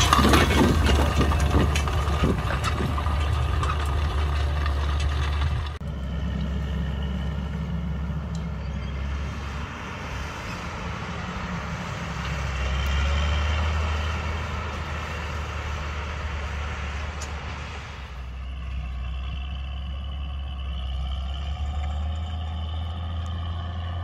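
Fendt 920 Vario TMS tractor's MAN diesel engine pulling hard under load, towing a Horsch Joker disc harrow through stubble. For the first few seconds it is heard up close with the clatter of the discs in the soil. After about six seconds it sounds more distant, a steady low drone.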